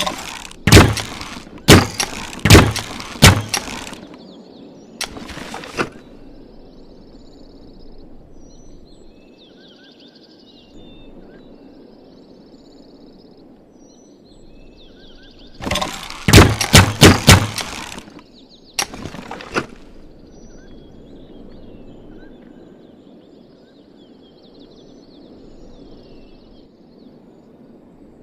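Bamboo repeating crossbow being worked and shot, giving sharp wooden clacks and snaps in two quick runs of about five or six, each followed a second or two later by one more.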